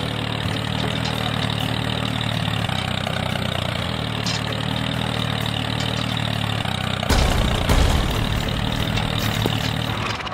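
An engine running steadily at idle, with a deeper, louder rumble coming in about seven seconds in.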